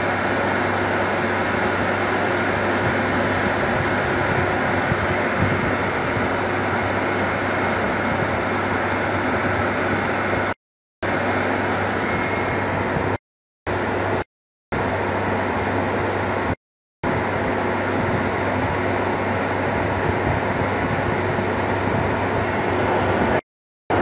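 Milk chiller's refrigeration compressor and condenser fan running steadily, a constant low hum under a broad rushing noise, while the unit is being charged with refrigerant gas. The sound cuts out completely for a moment four times in the second half.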